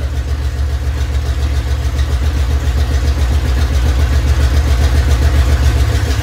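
1986 Ford F-150's engine running steadily through freshly installed headers with no mufflers, loud, its level creeping up slightly over the few seconds. It is the engine's first run after an automatic-to-manual transmission swap.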